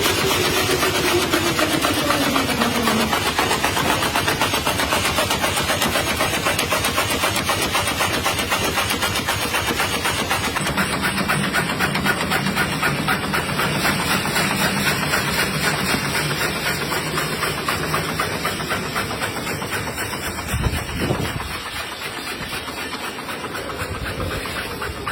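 Match-making factory machinery running with a fast, even clatter. A hum falls in pitch in the first few seconds, and a steady low hum joins in for several seconds in the middle.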